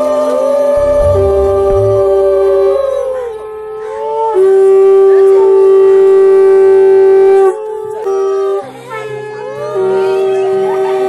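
Conch shells (shankha) blown in long held notes, several overlapping and bending in pitch as they start and stop. The loudest is one steady blast held for about three seconds in the middle. Background music plays underneath.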